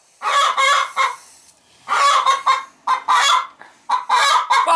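Hen in a nest box squawking loudly in four harsh bursts, one after another, in protest as a hand reaches under a sitting hen for her eggs.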